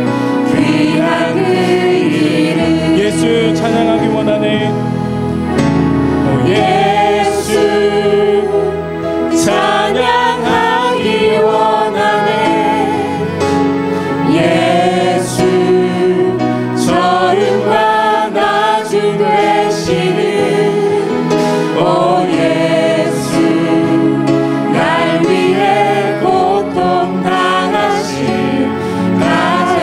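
Church praise team singing a worship song in harmony into microphones, with acoustic guitar and band accompaniment.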